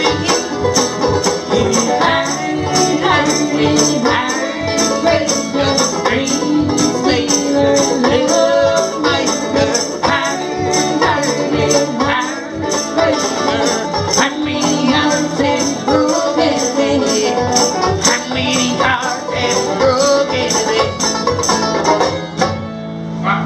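Live band playing an instrumental passage with a steady beat. The music drops away briefly near the end.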